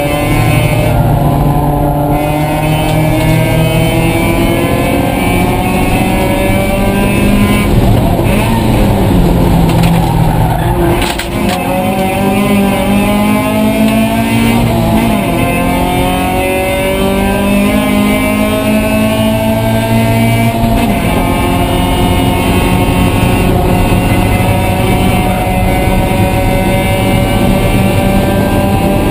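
Mazda Miata race car's four-cylinder engine, heard from inside the cockpit, accelerating at high revs with its pitch climbing steadily. The pitch falls back twice, about eleven and twenty-one seconds in, then climbs again.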